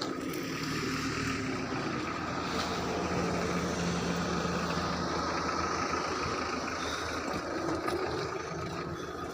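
An engine running steadily, with a constant low hum and a faint steady whine above it.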